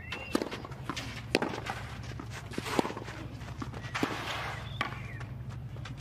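Tennis rally on a clay court: sharp knocks of racket strikes and ball bounces every second or so, with the players' footsteps on the clay, over a steady low hum.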